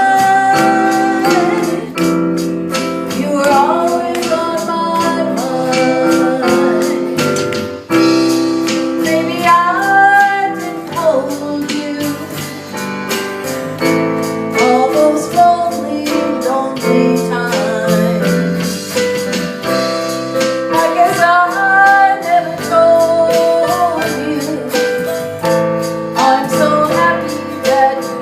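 A woman singing lead over a small band of electric bass, keyboard, drums and rhythm guitar, her melody gliding over the steady beat.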